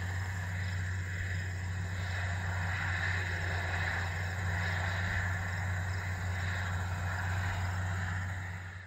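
Steady machine hum with a low drone and a hiss above it, fading out sharply right at the end.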